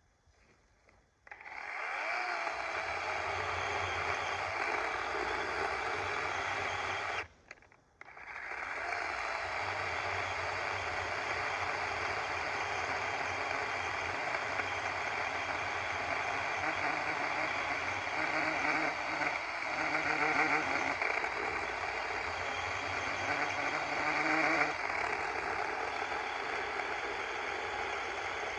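DeWalt 20V cordless battery chainsaw running with its chain cutting through a log. It starts about a second in, stops briefly about seven seconds in when the trigger is let off, then starts again and keeps running under load.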